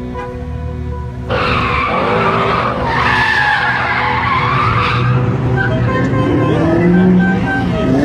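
Ford Mustang's tyres squealing as it spins out, the loud wavering squeal starting abruptly about a second in and lasting a few seconds, then the engine revving with rising pitch.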